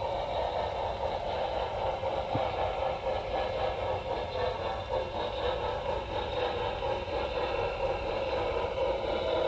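Model train rolling along the track, heard from a camera car riding on it: a steady, even running noise of wheels on the rails.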